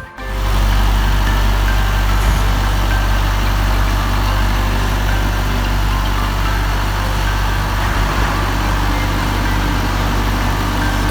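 Engine idling steadily with a deep, even hum, coming in abruptly at the start.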